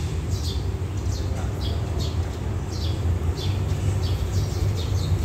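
Birds chirping in short, repeated downward notes over a steady low rumble from a diesel locomotive approaching with a train.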